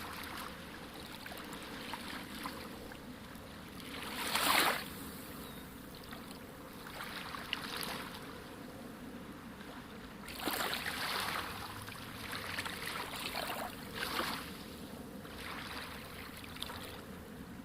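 Sea water washing steadily, with louder waves surging in about four seconds in, around ten to eleven seconds in, and again near fourteen seconds.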